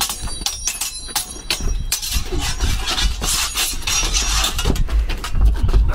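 Steel longswords clashing: a quick series of strikes, each leaving a short metallic ring. From about two seconds in, the blades grind and scrape against each other in a bind.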